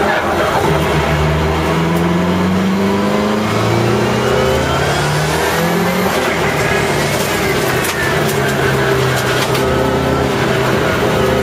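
Subaru Legacy engine heard from inside the cabin, accelerating and lifting off on a cone handling course. Its pitch climbs in steps through the first half, drops, then holds steadier.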